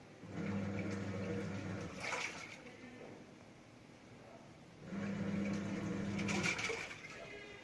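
LG T7270TDDL top-loading washing machine on silent mode, its pulsator motor humming as it churns the water in two strokes of about two seconds each, with a pause between them. Each stroke ends in a brief splash.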